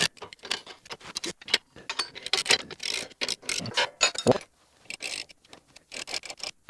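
Hand ratchet wrench clicking in quick, uneven strokes while tightening a bolt on a steel front mounting bracket, with scrapes and knocks of the tool against the metal and short pauses between bursts. The bolt is a hard one to reach and turn.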